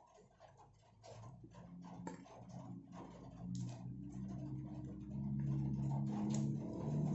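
Fried chicken being pulled apart by hand, crisp skin crackling and tearing in a run of small clicks and crackles. A low engine hum builds up underneath and grows louder toward the end.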